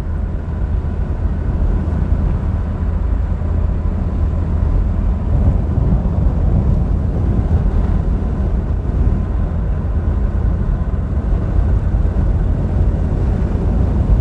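Steady low engine and road rumble of a 1986 Citroën BX being driven.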